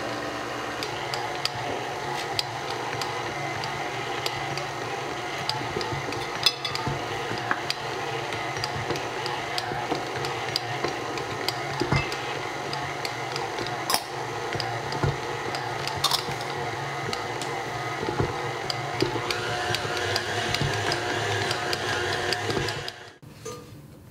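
Electric stand mixer running steadily, its dough hook kneading dough in a glass bowl, with light clicks and knocks throughout. The motor stops about a second before the end.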